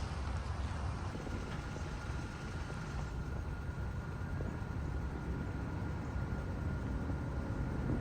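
Steady low rumble of a car driving slowly, with engine and tyre noise heard from inside the cabin.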